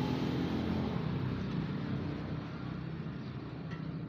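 A motor vehicle engine running steadily, slowly growing fainter.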